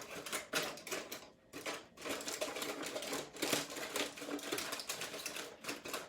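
Aluminum foil crinkling and crackling as it is handled and torn by hand: a dense, irregular run of crackles, with a short pause about a second and a half in.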